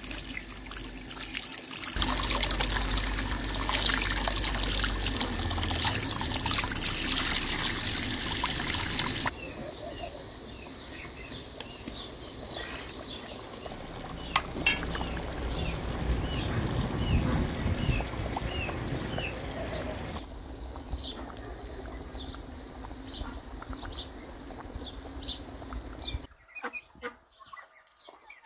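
Water pouring and trickling from an outdoor tap, then a pot of herb stew bubbling at a rolling boil, with small birds chirping in the background. Near the end, faint chirps from young poultry.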